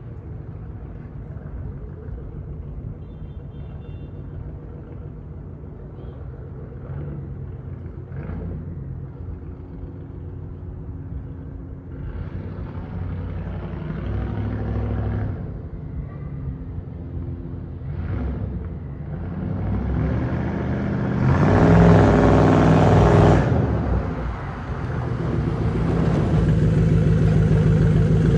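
Ford F-150 pickup's exhaust idling with a low, steady note, blipped a few times, then revved harder twice in the last third, the biggest rise about three-quarters of the way through before it drops back and climbs again.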